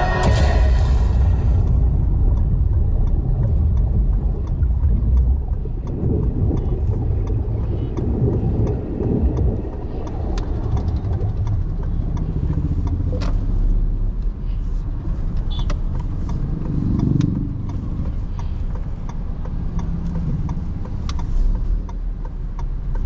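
2024 Maruti Suzuki Swift being driven: a steady low rumble of its 1.2-litre three-cylinder petrol engine and road noise, swelling and easing a few times, with scattered sharp clicks.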